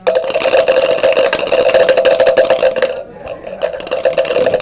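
Dice rattling hard in a plastic cup, a dense fast clatter with a hollow ring. It eases off about three seconds in but keeps rattling more lightly.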